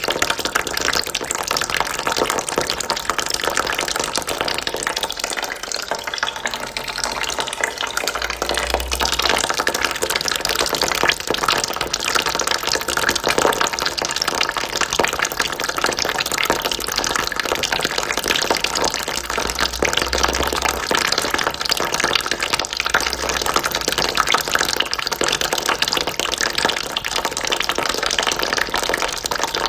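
A steady stream of water trickling into a bucket, running on without a break.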